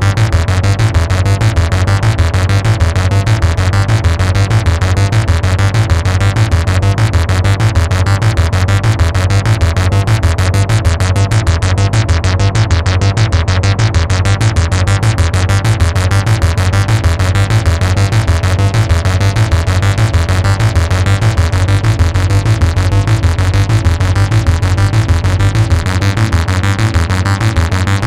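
Behringer Model 15 analog modular synthesizer playing a fast repeating sequence over a heavy, steady bass pulse. The highest tones thin out briefly about halfway through, then return.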